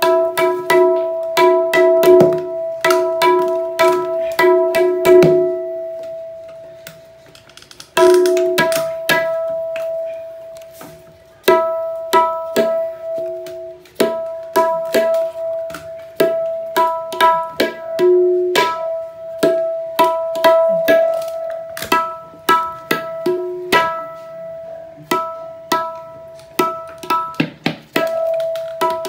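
Tabla dayan (right-hand treble drum) being tuned to E: its goatskin head is struck again and again with the fingers, ringing at one steady pitch after each stroke, among sharp taps of a metal tuning hammer on the braided rim. The strokes come several a second, with short pauses between runs.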